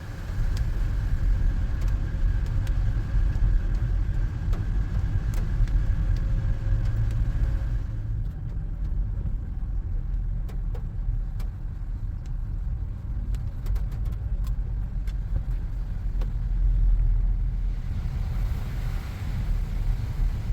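Car driving along a road: steady low rumble of engine and tyres, with scattered light ticks.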